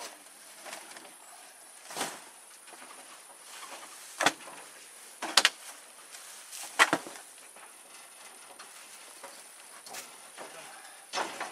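A series of knocks and thuds as junk and boards are thrown into and dropped onto a tractor's wooden cargo bed. There are three loud knocks in the middle, one of them doubled, and lighter ones before and after.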